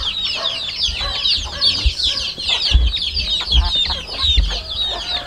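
A flock of native chickens calling: many chicks peeping nonstop in high, falling chirps over hens clucking, from a flock the keeper calls hungry. A few dull low thumps come through under the calls.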